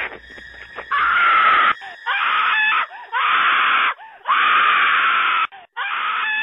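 A person screaming: five loud shrieks of about a second each, with short breaks between them.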